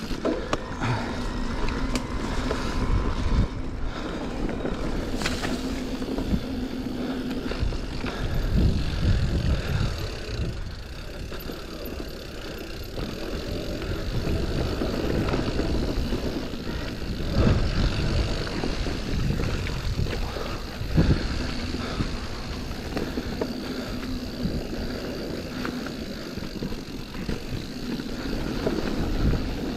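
Electric mountain bike ridden over a dirt and leaf-covered forest trail: tyres rolling and crunching on the ground, with repeated knocks and rattles of the bike over bumps and a low rumble of wind on the camera.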